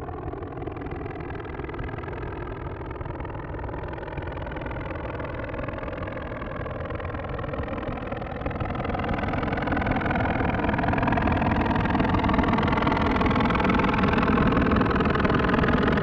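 Roland Alpha Juno-1 synthesizer preset played through a Source Audio Nemesis delay pedal: one held, noisy drone with steady tones inside it. It swells louder and brighter over the second half.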